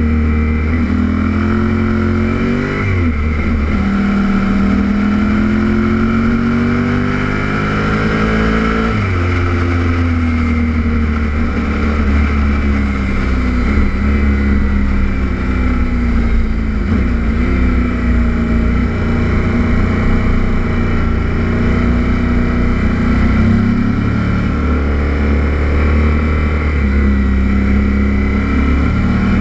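Kawasaki Z800 inline-four motorcycle engine heard from a camera mounted on the bike, its pitch climbing for several seconds under acceleration, dropping sharply about nine seconds in on a throttle-off or gear change, then rising and falling again and again through the bends.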